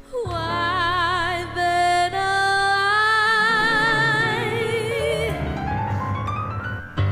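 Female solo voice singing long held notes with a wide, even vibrato over instrumental accompaniment; the accompaniment fills in more fully about halfway through.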